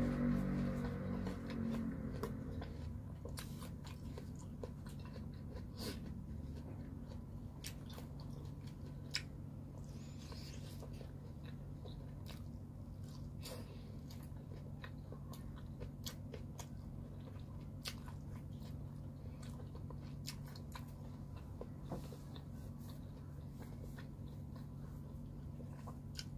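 Close mouth sounds of eating thin, crispy pizza: scattered crunching bites and chewing, with one sharper click about nine seconds in. A steady low hum runs underneath.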